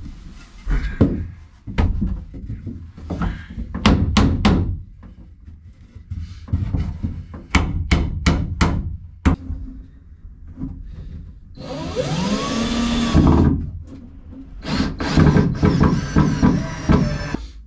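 Claw hammer knocking nails into the wooden bunk frame, with single blows and a quick run of hammer strikes about halfway through. A little later a cordless drill whirs for a second or so.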